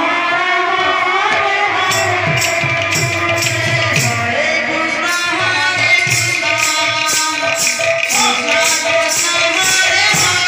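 Kirtan devotional music: a lead voice sings the chant over a drum, and from about two seconds in jingling metal percussion keeps a steady beat of about two strikes a second.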